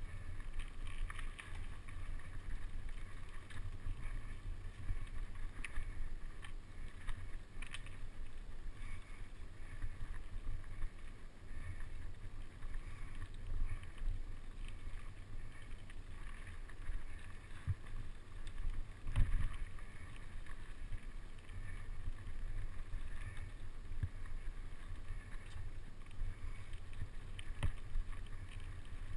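Mountain bike riding over a rough dirt trail, heard from a camera mounted on the bike: a steady low rumble of wind and ground vibration, with the frame and parts rattling and knocking over bumps. One heavier thump comes about two-thirds of the way through.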